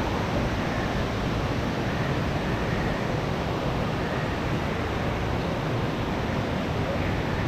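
Steady rushing noise at an even level, with no clear beat or voice standing out.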